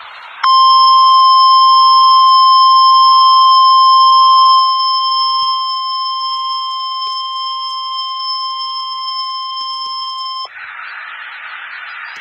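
NOAA Weather Radio's 1050 Hz warning alarm tone: one loud, steady tone lasting about ten seconds, starting half a second in, dropping somewhat in level partway through, and cutting off abruptly. Radio hiss is heard before and after it. The tone signals that a warning message is about to be read.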